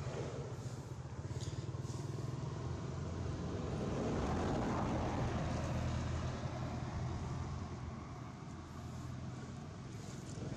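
A low, steady engine drone that grows louder about four seconds in and fades again after six, as of a motor vehicle passing.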